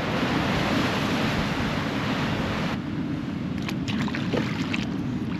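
Ocean surf washing on the shore, a steady rushing noise with wind on the microphone. About halfway through the hiss suddenly thins, leaving a lower rush.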